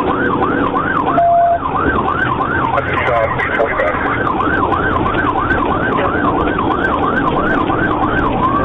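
Police car siren in a fast yelp, its pitch rising and falling about twice a second, over steady engine and road noise.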